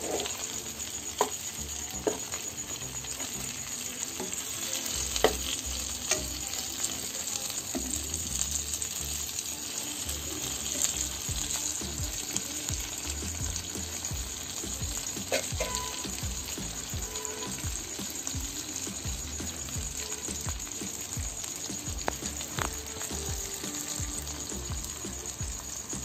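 Whole mullet frying in shallow oil in a pan: a steady sizzle, the fish browned and crisping near the end of frying. A metal utensil clicks against the pan a few times.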